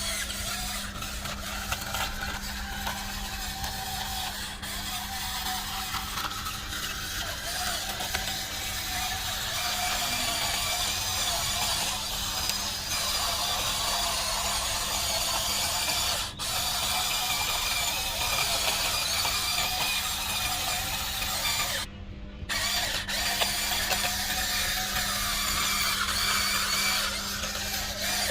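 Small electric motors and plastic gearboxes of a radio-controlled toy construction machine whirring and grinding steadily as it works. The sound breaks off briefly about three quarters of the way through.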